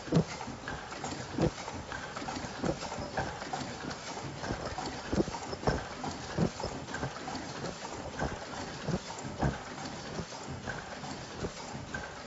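Automatic face-mask production machine running, with repeated sharp mechanical clacks about one or two a second over a steady machine noise.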